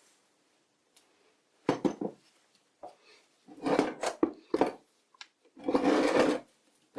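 Small metal lathe accessories being picked up and set down on a wooden bench: three short bouts of clinking and scraping with pauses between them.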